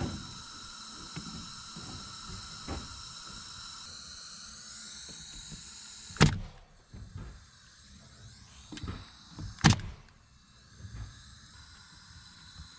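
Pneumatic nail gun firing twice, about three and a half seconds apart, each shot a sharp crack, with quieter handling knocks around them. A steady high-pitched buzz runs under the first few seconds and fades out about five seconds in.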